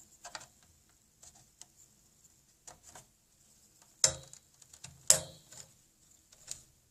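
Small plastic and metal clicks and taps as parts inside a small desktop PC are pressed into place by hand, with two sharp snaps about four and five seconds in.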